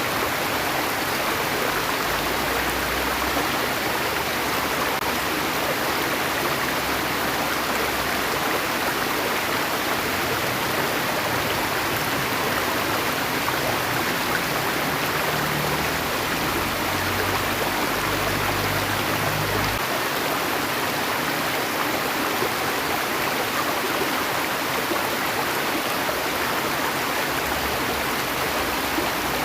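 Steady rushing of flowing stream water, with no break or change.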